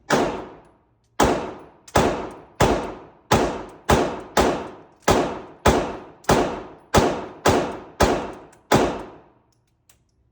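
A quick string of about fourteen gunshots from a semi-automatic firearm, roughly one every half second or so, each shot followed by a long echoing decay. The firing stops about nine seconds in.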